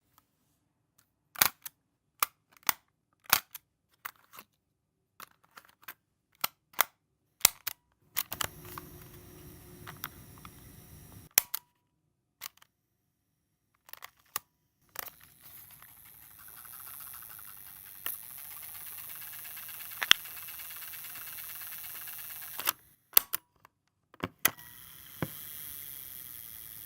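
Tape recorder's mechanical buttons clicking: a string of single clicks, then play pressed several times so the transport runs with a steady hiss and hum, each run ending with a click of the stop button.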